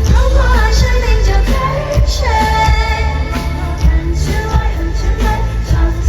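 Live Mandopop concert music: a female lead vocal sings over a loud band with a heavy, pulsing bass beat.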